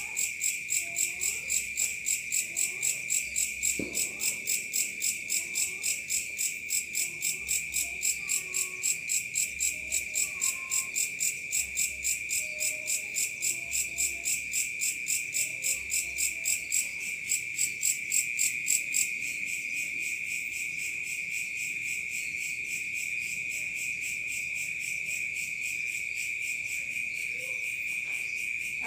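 Crickets and other insects calling together: one steady high trill, with a louder pulsing chirp over it at about three pulses a second that stops about two-thirds of the way through.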